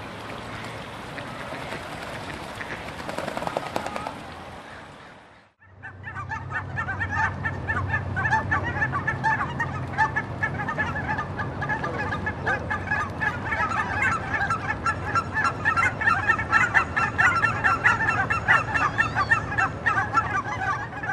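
A flock of geese honking, many short calls overlapping in a continuous clamour. Before it comes a steady rushing noise that cuts off about five seconds in.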